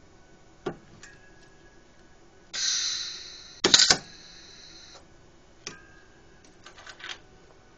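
Drawn-arc stud welder firing one weld of a fin onto a gear: shielding gas starts hissing, and about a second later the arc strikes and the stud is plunged home in a short, loud crackle lasting well under half a second, after which the gas hiss fades away. Light clicks and clinks of the stud gun being set on and lifted off the work come before and after.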